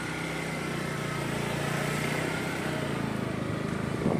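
Motorcycle engine running steadily as the bike is ridden slowly, swelling a little midway. A short sharp knock comes near the end.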